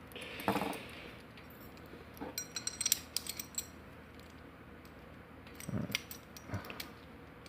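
Small metal clicks and clinks of a lock's parts being handled while a ring that fell off it is fitted back on: a quick cluster of clicks about two to three seconds in and a few more near the end.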